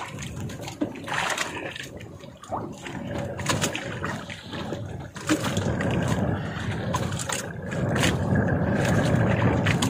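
Short clicks and knocks from handling a hooked fish and handline in the first half, then a steady rushing noise of wind and sea water from about halfway through.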